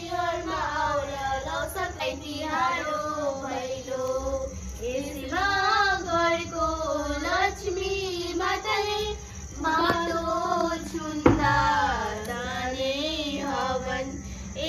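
A girl and young women singing a Bhailo song together for Tihar, with several voices in unison. One sharp knock about three-quarters of the way through.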